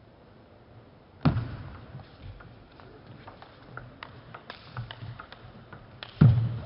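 Table tennis ball clicking off bats and table: a run of light ticks, with two louder thuds, one about a second in and one near the end.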